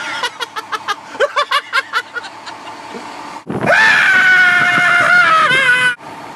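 A man in a fire engine's cab lets out a long, loud yell held on one pitch for about two seconds, wavering at the end before it cuts off abruptly. Before it come a run of short, rapid voice bursts.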